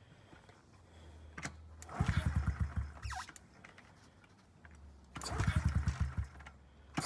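2009 Honda CRF50F pit bike's small four-stroke single being kickstarted, firing in a quick run of pulses for about a second and dying, twice. It keeps failing to run because the choke was left on too long.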